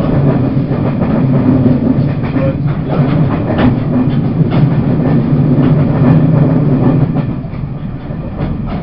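Taiwan Railways push-pull Tze-Chiang express (E1000 series) running at speed, heard from inside the train: a steady low drone with scattered clicks from the wheels on the track. It gets a little quieter near the end.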